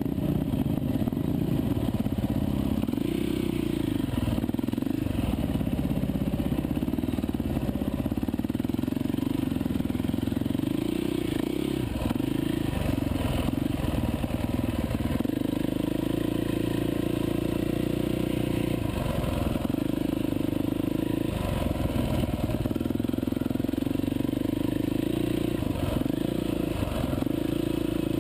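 Dirt bike engine running while riding a rough trail, its pitch rising and falling with the throttle, with brief dips where the rider backs off.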